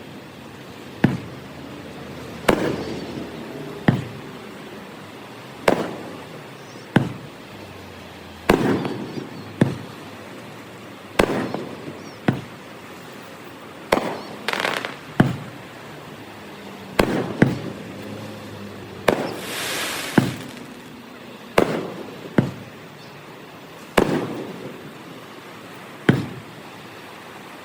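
Fireworks shells bursting, played back at double speed: about twenty sharp bangs a second or two apart, each trailing off in a short rumble. A brief crackle comes about halfway, and a longer crackling hiss comes a few seconds later.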